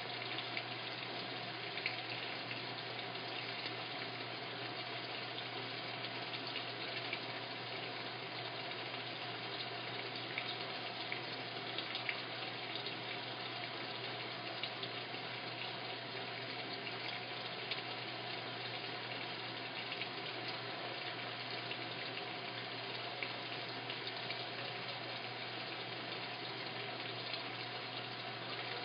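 Washing machine filling with water: a steady rush of water pouring into the drum, with a low hum underneath.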